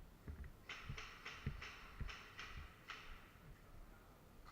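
Footsteps of a player walking at a steady pace, with soft thumps about twice a second and short rustling or crunching swishes of clothing and gear between them.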